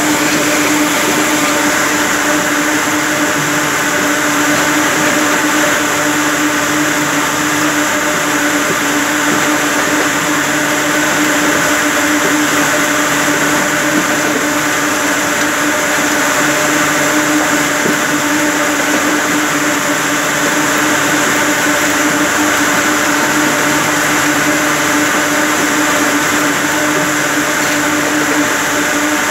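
Rows of ring spinning frames running in a spinning mill: a loud, steady mechanical drone with a constant low hum.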